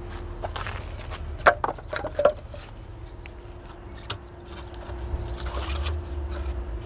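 Pieces of scrap wood knocking and scraping against each other and the clay walls inside a ceramic tandoor as they are shifted by hand, with a few sharp knocks between about one and a half and two and a half seconds in and another near four seconds.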